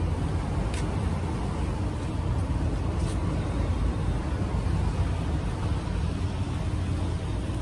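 A steady low rumble, with two brief faint clicks about one and three seconds in.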